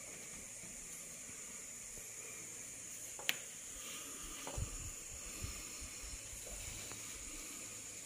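Steady hiss with a thin, high, steady tone running through it. A single sharp click comes about three seconds in, and a few soft low knocks follow a second or two later.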